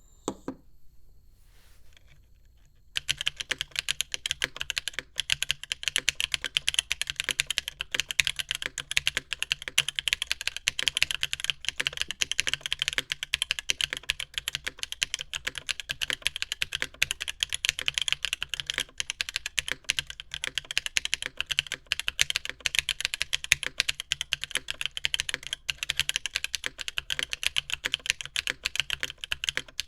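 Continuous typing on a mechanical keyboard fitted with Lichicx Yalasuo linear switches on a polypropylene plate, under GMK cylindrical keycaps. It gives a rapid, even stream of high-pitched clacking keystrokes, starting about three seconds in.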